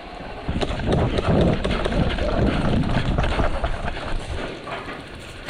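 Quick, rhythmic footfalls and rustling of someone running, with a heavy rumble of movement on the microphone; it eases off after about four seconds.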